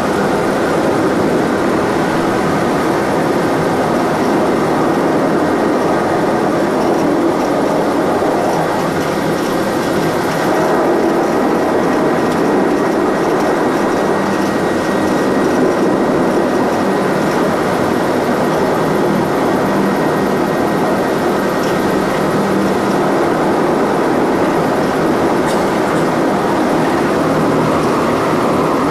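SRN4 cross-Channel hovercraft heard from inside its flight deck, its four Rolls-Royce Marine Proteus gas turbines, propellers and lift fans running together as a loud, steady noise with a faint high whine, while the craft moves across the concrete hoverpad.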